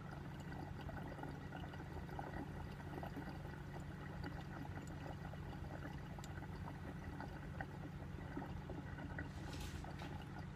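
Water in a glass dab rig bubbling and gurgling steadily as a long hit is drawn through it, with a brief hiss near the end.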